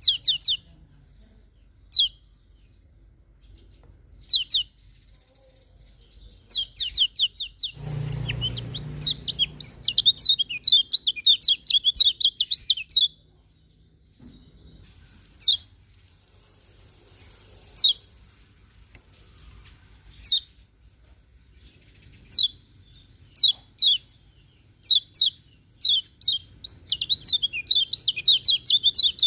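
Kecial kuning white-eye singing: single high downslurred chirps about every two seconds, breaking twice into long, fast twittering runs of notes. A low rumble sits under the first run.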